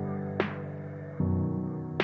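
Background music: sustained ambient chords that change about a second in, with a short percussive hit near the start.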